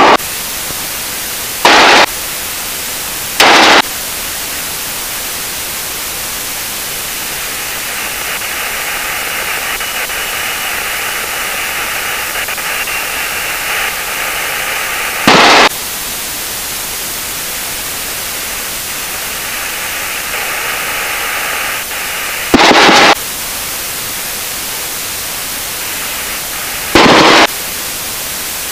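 Steady hiss of cockpit intercom and radio audio, broken by several short, very loud bursts of static of about half a second each, like radio squelch breaks.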